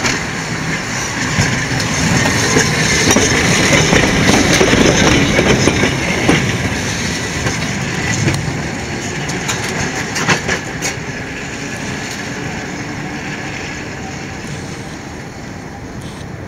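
Vintage tram no. 436 running past on its rails, getting louder as it approaches and passes close by, then fading as it moves away. A few sharp clacks come in the second quarter, as the wheels cross rail joints and points.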